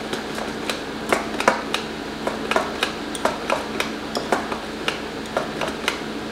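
Wire whisk knocking and scraping against a terracotta bowl as yogurt raita is stirred: irregular sharp clicks, a few a second, over a steady fan hum.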